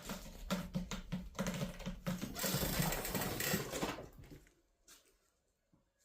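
A cat's paws drumming rapidly on the floor as it races about in a burst of zoomies, followed by about a second and a half of dense scrambling noise. It then goes quiet, with one light tap.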